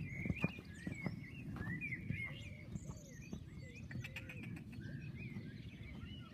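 Songbirds chirping and singing steadily, with a few soft hoofbeats of a horse cantering on sand near the start.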